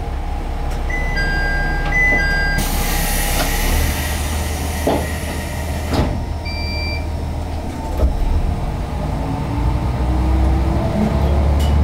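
Diesel railcar engine idling at a standstill, heard from the driver's cab, with a few short electronic beeps and a few seconds of hiss in the first half. Over the last few seconds the engine note rises as the railcar starts to pull away.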